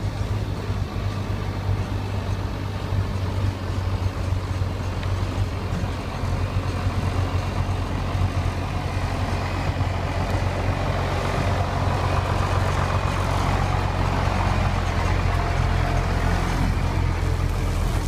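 Water bowser truck's diesel engine running steadily as the truck drives slowly up and past at close range on loose graded soil. The sound grows louder and noisier in its second half as the truck comes alongside.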